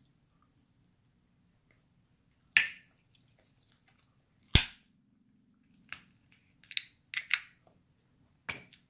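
Crab leg shells cracked and snapped apart by hand: about seven sharp cracks, the loudest about halfway through, followed by a run of smaller snaps near the end.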